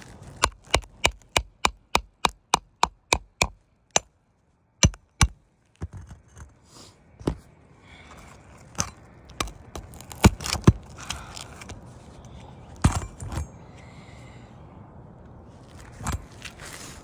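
Steel pry tool worked under asphalt roof shingles. For the first few seconds there is a quick, even run of sharp taps, about three a second. After that come scattered sharp knocks and scraping as the tool is pried beneath the shingles to break their seal.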